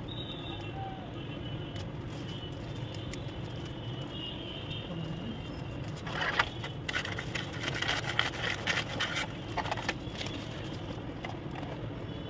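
Epson L130 inkjet printer mechanism running: the print-head carriage travels along its rail, with a few seconds of rapid clicking and rattling from about halfway in.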